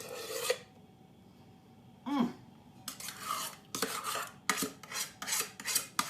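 Utensil scraping meringue out of a mixing bowl into cake tins: a scrape, a brief squeak, then a run of short strokes about two a second.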